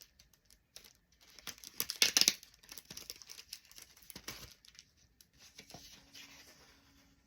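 Paper and plastic packaging rustling and crinkling as craft pieces are handled and turned over, in irregular bursts, loudest about two seconds in.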